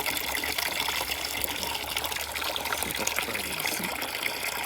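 Water gushing and pouring steadily.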